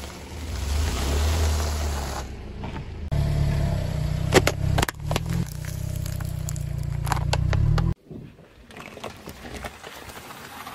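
Car creeping over objects on asphalt: a low engine hum with crackling from the tyre, then a burst of sharp cracks and snaps about four to five seconds in as something crisp is crushed under the tyre. After a sudden cut about eight seconds in, a quieter stretch of faint crackling follows as the tyre presses into soft slime.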